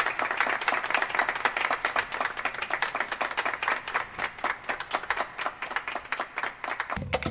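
Applause: many hands clapping in a dense, steady patter, cut off near the end as upbeat music starts.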